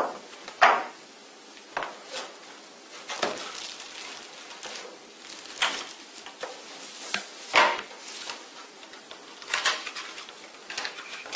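Unpacking from a cardboard box: irregular knocks and clatters as parts are set down on a wooden tabletop, with rustling of a plastic bag, about one sound every second or two.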